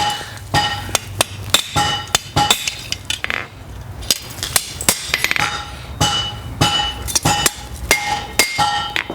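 Blacksmith's hand hammer striking steel on an anvil, irregular blows about twice a second, each with a short metallic ring: working the hinge's rolled barrel tighter around a drift.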